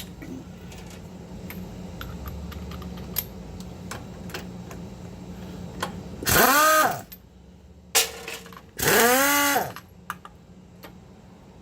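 Pneumatic impact wrench spinning lug nuts off in two short bursts, each under a second, its pitch rising and falling. It runs slowly because the compressor is shut off and the air pressure is low. Light clicks and a low steady hum come before it.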